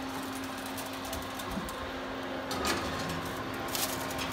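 A foil-covered metal roasting pan being slid onto a wire oven rack: short metal scrapes and clanks, the first about two and a half seconds in and more near the end, over a steady low hum.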